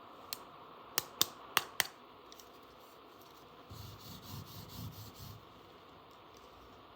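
Small toy parts being handled: five sharp clicks in the first two seconds, four of them in quick succession, then about a second and a half of soft rubbing.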